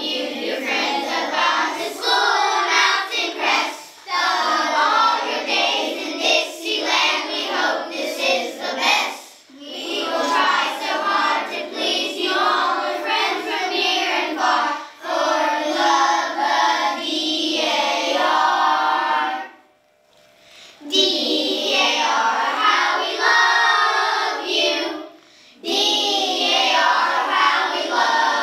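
A group of third-grade children singing together, in phrases of a few seconds with short breaks between them and a longer pause about twenty seconds in.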